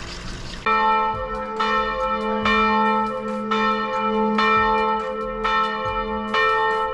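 Church bell in the village bell tower tolling, struck about twice a second, each stroke ringing on into the next. It starts suddenly under a second in and stops abruptly at the end.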